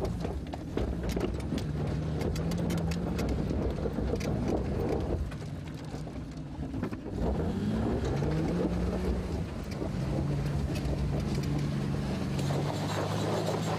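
A Jeep Wrangler's engine heard from inside the open cab, running at low revs as it crawls over rough off-road ground, with a clatter of knocks and clicks in the first few seconds. The engine drops back, then revs up briefly about seven or eight seconds in and settles to a steady drone.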